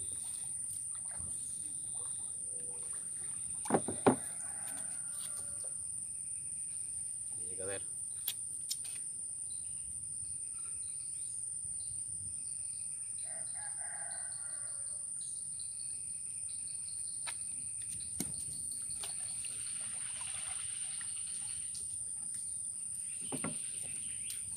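Gill-net handling in a wooden canoe, with two sharp knocks about four seconds in and a few lighter taps. Bird calls come and go over a steady high-pitched insect drone.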